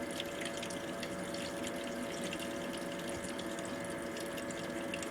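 Homemade ice-cooler air conditioner running: a bilge pump circulates ice water through the heater core, and the water trickles and splashes steadily back into the cooler over a steady motor hum.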